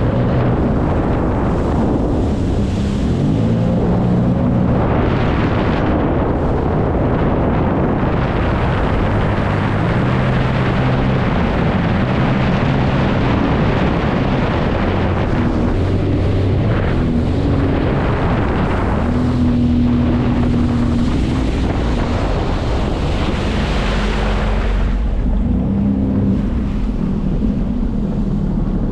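Jet ski engine running under way, its pitch stepping up and down with the throttle, over a steady rush of wind on the microphone and water hiss.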